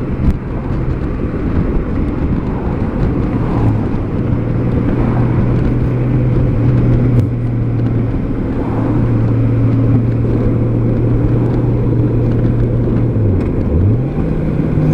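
A 2003 Honda Gold Wing's flat-six engine running steadily under way, with wind noise. About thirteen seconds in, the engine note drops as the bike slows, then rises again as it picks up speed.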